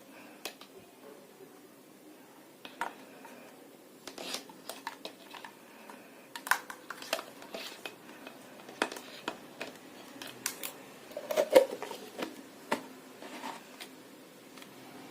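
Irregular clicks and light knocks of small hard objects being handled, sparse at first and busier from about four seconds in, with the loudest knock about eleven and a half seconds in.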